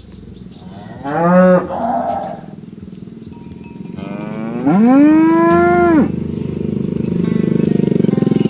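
Cows mooing: a short moo about a second in, then a longer drawn-out moo around the middle that rises, holds and drops away at its end. A steady hum comes in after the second moo.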